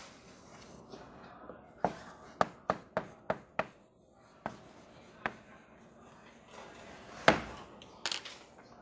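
Chalk tapping and scraping on a blackboard as curves and labels are drawn. A quick run of about six sharp taps comes a couple of seconds in, then a few scattered taps, and a louder knock near the end.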